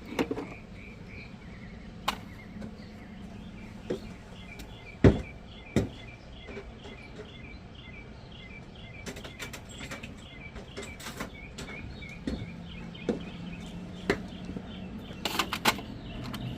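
Scattered sharp clicks and knocks of tools and parts being handled, the loudest about five seconds in, over a steady rhythmic chirping that repeats several times a second.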